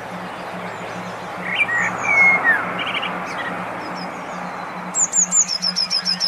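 Recorded songbirds chirping over a steady background hiss and low hum: a few scattered calls and short whistled phrases, then about five seconds in a bird starts a loud, fast series of high, repeated downward-sweeping notes.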